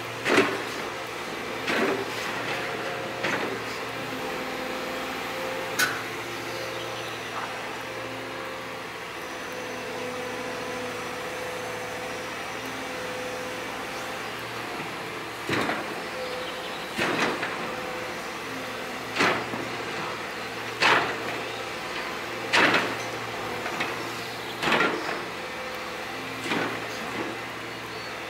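Liebherr R926 compact excavator running steadily on a slope, with about a dozen sharp knocks and scrapes from its tiltrotator bucket working the stony ground, most of them in the second half.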